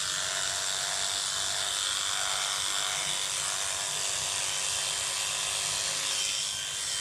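Small electric clipper running steadily as it shears the wool pile of a hand-knotted rug, a constant buzz with a faint high whine.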